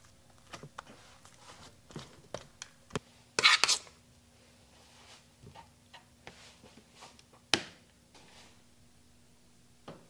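Spatula spreading frosting over a cake and knocking against the plate: scattered soft scrapes and clicks, with one longer scrape about three and a half seconds in and a sharp click about seven and a half seconds in, over a faint steady hum.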